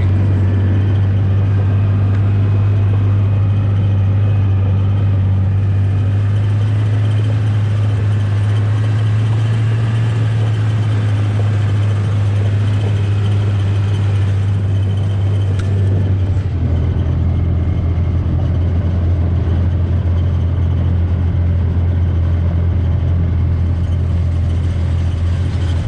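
The engine of a buggy, a small utility vehicle, runs steadily with a loud low drone as it drives along towing a log splitter. The engine note shifts about two-thirds of the way through.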